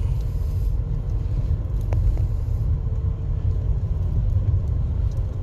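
Steady low rumble of a slowly moving vehicle, with a faint steady hum and a single click about two seconds in.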